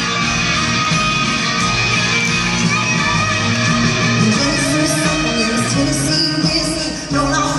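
Live country-rock band music, led by electric guitar over a full band, playing continuously; the texture shifts about halfway through, with a brief drop in level near the end.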